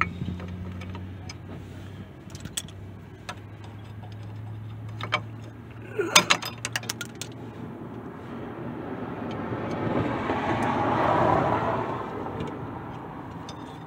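Scattered metallic clicks and clinks of needle-nose pliers and steel brake shoe return springs being hooked onto a drum brake assembly, with a cluster of them about six seconds in. A rushing noise swells and fades over the last few seconds.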